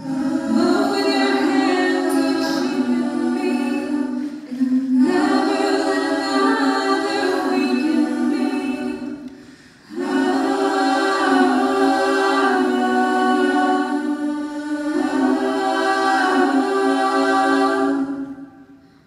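Mixed-voice a cappella group singing held chords into microphones, in four phrases of about four seconds each with short breaks between them.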